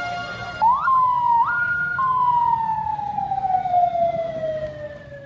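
Ambulance siren: a steady held tone breaks about half a second in into a quick upward whoop and a jump between two pitches, then winds down in a long, slowly falling wail. Low street rumble underneath.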